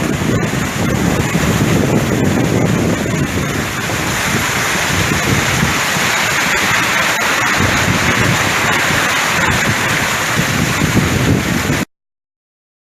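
Loud summer storm: heavy rain and gusting wind buffeting the microphone, with scattered sharp hits from hailstones. It cuts off suddenly near the end.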